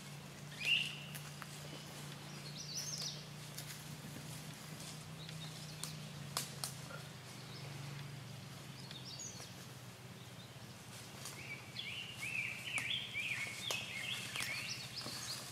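Wild birds chirping and calling, with one loud short chirp about a second in and a run of calls near the end, over a steady low hum. A few faint clicks of footsteps on dry leaf litter.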